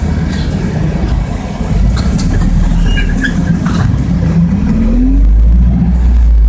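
Bogdan A09204 city bus's diesel engine heard from inside the passenger cabin as the bus accelerates: a steady drone whose pitch rises about four and a half seconds in, then grows louder and deeper toward the end, with a few light clicks and rattles.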